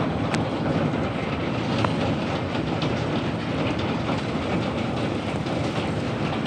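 Pea-sized hail pelting down in a strong, steady roar of wind and rain, with many sharp scattered ticks of hailstones striking.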